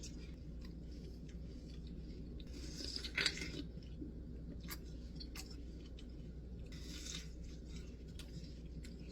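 Scattered small clicks and two short hissy noises, the louder one about three seconds in and a fainter one about seven seconds in, over a steady low hum.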